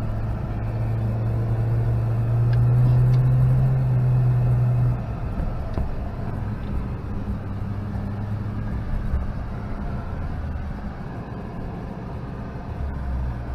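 1996 Mitsubishi Pajero Mini's 660 cc four-cylinder engine running as it drives, heard from inside the cabin. The engine note rises slightly and is loudest in the first few seconds, then drops about five seconds in as the driver lifts off, and it carries on more quietly.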